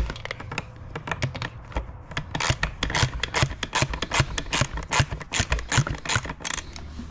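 Hand ratchet wrench clicking in quick runs as a bolt on a Honda CRF50 dirt bike's air box is worked loose, with one sharp click at the start.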